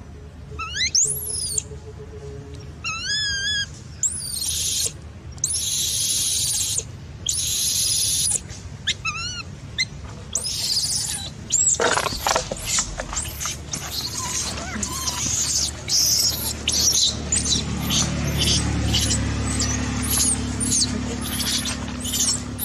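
Baby macaque screaming and squealing in distress: high, wavering whistle-like cries at first, harsh screams about four to eight seconds in, then a fast string of short, high squeals, two or three a second, through the second half. These are an infant's cries to be nursed.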